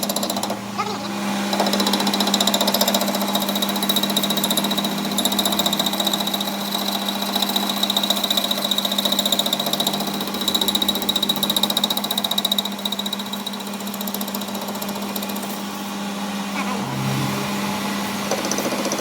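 A workshop machine running steadily: a constant hum with a fast rattle and a high whine that fades out about two-thirds of the way through.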